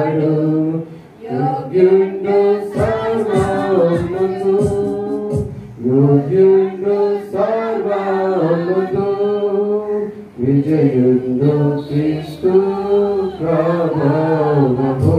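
A man singing a Telugu hymn into a handheld microphone, in long held phrases with short breaks for breath about one, six and ten seconds in.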